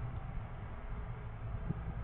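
Steady low hum with a faint hiss underneath, unchanging throughout: background noise on the recording microphone.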